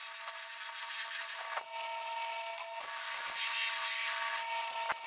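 Bench drill press running, its bit boring into wood, a steady motor whine under the hiss of cutting that grows louder a little past the middle.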